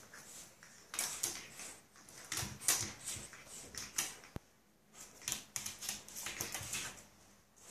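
Pug puppy's claws clicking and scrabbling on a hard floor in quick clusters as it pounces and paws at a mirror, with one sharp tap about four seconds in.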